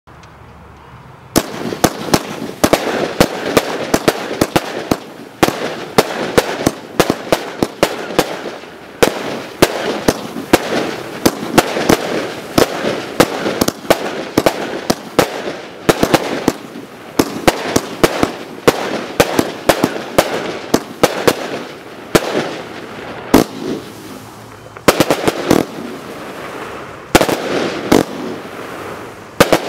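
Zeus Fireworks Sidewinder, a 70-shot firework cake, firing shot after shot from about a second in. There are sharp, irregular bangs over a continuous crackle of bursting stars.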